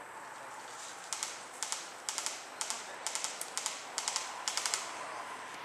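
Airsoft guns firing short bursts of sharp clicking shots, a cluster of two to four shots roughly every half second, starting about a second in.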